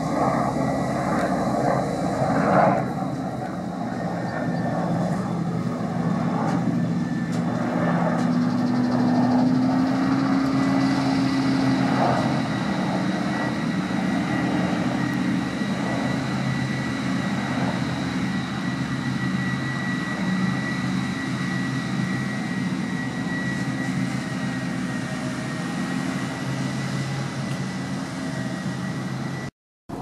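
New Holland self-propelled forage harvester running steadily under load while chopping maize, with a tractor running alongside: a deep engine drone under a steady high whine. A single louder knock comes about two and a half seconds in, and the sound drops out briefly near the end.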